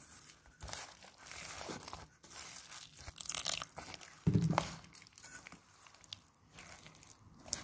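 A hand squishing and kneading a wet, gritty mix of semolina, flour and sugar with water in a metal bowl, giving irregular wet crunching and squelching. A dull, heavier thump comes about halfway through.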